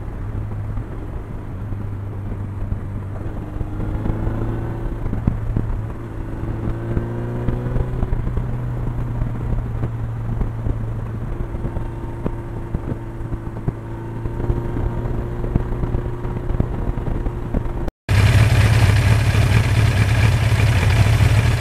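Suzuki GS inline-four motorcycle engine heard from on board while riding: a steady drone whose pitch climbs several times between about four and eight seconds as the bike accelerates through the gears, then holds at cruising speed. After a sudden cut near the end, the engine is heard close up, louder and steady, at idle.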